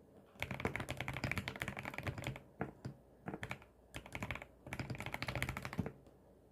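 Tiger80 mechanical keyboard with Gateron switches being typed on: fast runs of keystrokes in several bursts with short pauses between them. The typing stops about six seconds in.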